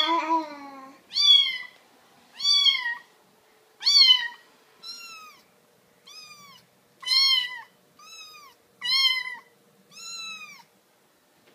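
Kittens meowing repeatedly: high, arching cries about once a second, ten or so in all.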